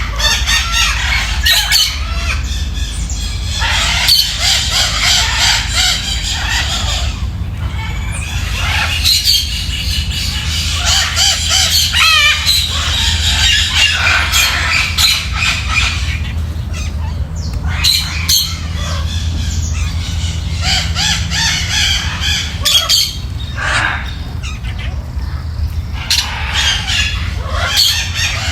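Small parrots (parakeets and cockatiels) chattering, chirping and squawking continuously, many calls overlapping. A steady low hum runs underneath.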